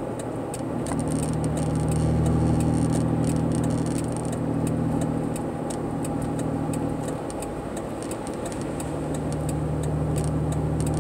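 Car engine and road noise heard from inside the cabin while driving: a steady low engine hum that eases off for a couple of seconds past the middle and then picks up again, with faint scattered clicks and rattles.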